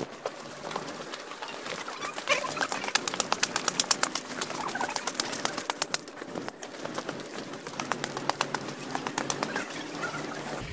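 Quick, regular footsteps climbing a flight of steps, about four a second, loudest in the middle of the climb.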